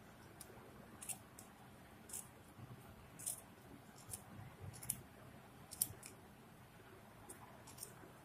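Small scissors snipping through wool yarn wound on a pom-pom maker, cutting the loops open. About ten short snips come at uneven intervals.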